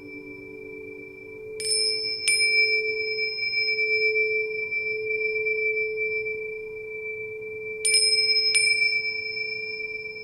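Meditation chime struck twice in quick succession about one and a half seconds in, and twice more near the end, each strike ringing on long and high over a steady low hum.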